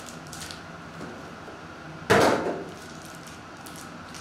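Foil-wrapped trading-card packs crinkling and rustling as they are taken from the box and stacked, with one loud thump about two seconds in.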